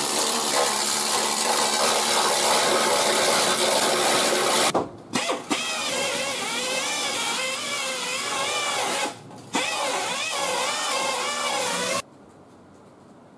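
McGraw compact pneumatic needle scaler running against rusted sheet steel for about four and a half seconds. After a short pause an electric drill with a wire wheel scrubs the rust, its motor pitch wavering under load; it stops briefly about nine seconds in and cuts off about two seconds before the end.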